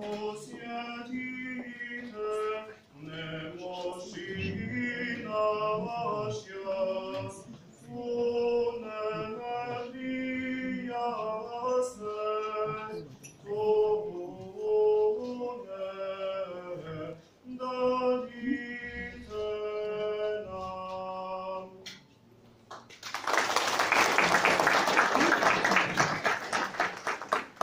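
A small group of mixed male and female voices singing a cappella in harmony, with held notes and no instruments. The singing stops about 22 seconds in, and the audience then applauds for about four seconds, louder than the singing.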